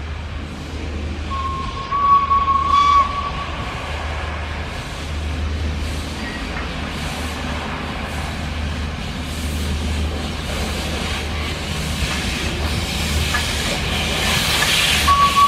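WP-class steam locomotive approaching with its train. A short steam whistle blast sounds about a second and a half in. Then come the engine's exhaust beats and a hiss of steam that grows louder as it nears, and the whistle starts again at the very end.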